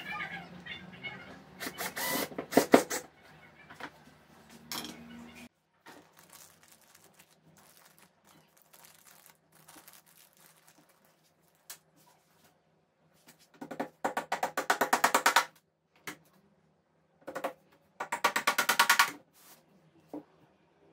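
Knocks of wooden pieces being handled in the first few seconds, then three bursts of rapid, even mechanical clicking, each about a second and a half long, in the second half.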